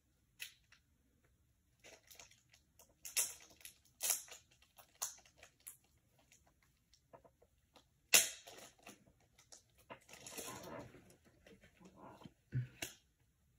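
Faint handling noises of a stack of trading cards being unwrapped and handled: scattered light clicks and taps, a sharper click about eight seconds in, and a longer rustle around ten to eleven seconds in.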